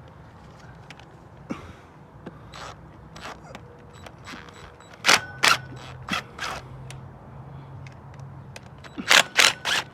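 Cordless impact wrench run in short bursts on 10mm bolts on a 2ZZ-GE engine: two quick bursts about five seconds in, two more just after, and a rapid cluster near the end.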